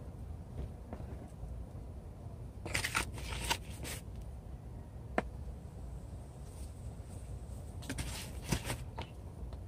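Potting soil being handled with a gloved hand: two short spells of gritty crunching and rustling, about three seconds in and again near the end, with a single sharp click in between.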